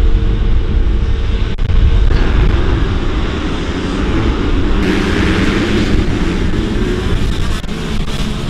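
Motocross bikes' engines running hard on a dirt track. The sound changes abruptly about two seconds in and again about five seconds in.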